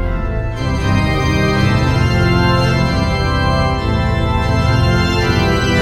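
Background music of sustained chords held for a second or more and changing every so often, over a steady bass.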